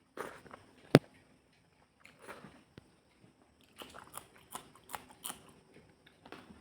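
Close-miked mouth sounds of a person eating fish curry: short bites and chewing, with a sharp loud click about a second in and a run of clicks and smacks in the second half.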